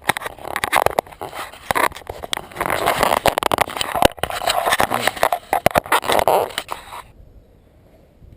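Close-up rubbing, scraping and rapid clicking as hands work loose the bumper trim and fittings on a BMW E34, stopping suddenly about seven seconds in.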